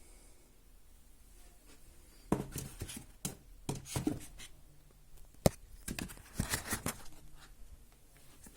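Handling of a gimbal stabilizer and its cardboard packaging: a quiet start, then a run of irregular clicks, taps and rustles, with one sharp click about halfway through.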